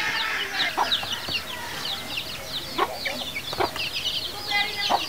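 A flock of birds chirping and calling together, many quick high chirps overlapping, with a few louder sharp calls now and then.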